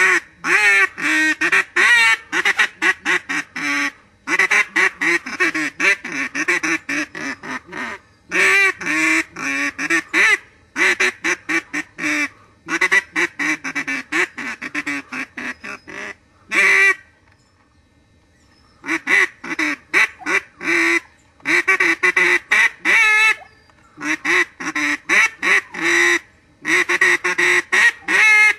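A duck call played as a musical instrument, picking out Christmas carol melodies in phrases of rapid short notes. The phrases are separated by brief pauses, with a longer gap of about two seconds a little past the middle.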